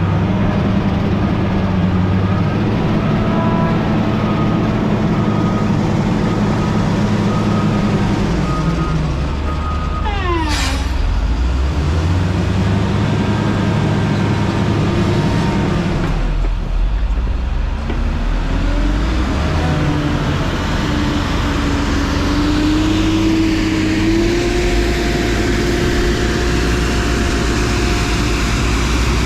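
Motor grader's diesel engine working, its pitch swelling and easing in slow surges as the load changes. About a third of the way in there is a short, quick falling whistle-like sweep.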